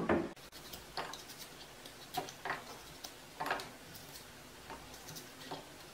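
Hog plums being cut into small pieces with a knife over a steel mixer-grinder jar: scattered, irregular light clicks and taps as the blade goes through the firm fruit and the pieces drop into the jar.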